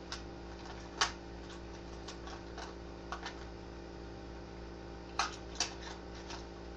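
Irregular clicks and light knocks of makeup items being handled and rummaged through, the sharpest about a second in, over a steady low hum.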